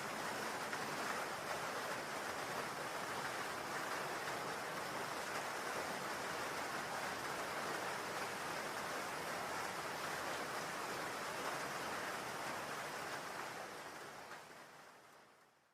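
Steady rain hiss with no distinct drops, fading out over the last couple of seconds.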